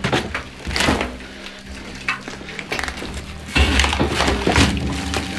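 Heavy steel ore bucket shoved over broken mine timbers: wood cracking and splintering, with knocks and scraping. The loudest, busiest stretch comes about three and a half seconds in.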